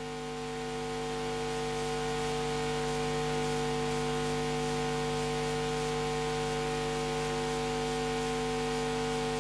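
Steady electrical mains hum with a faint hiss from the microphone and sound system, growing a little louder over the first two seconds and then holding even.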